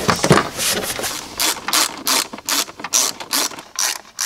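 A hand ratchet driving down a 10 mm engine-cover bolt, its pawl clicking in short bursts about three times a second. A few knocks near the start come from the plastic engine cover being pressed into place.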